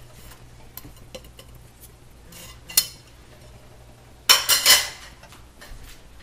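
Metal kitchen utensils and cookware clinking: one sharp clink a little before three seconds in, then a short loud clatter of several clinks a little after four seconds.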